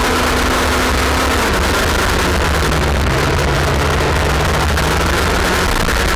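Onboard sound of a Junior X30 kart's IAME 125cc two-stroke engine at racing speed. Its note drops about a second and a half in and then slowly climbs again. Heavy wind rumble on the kart-mounted microphone.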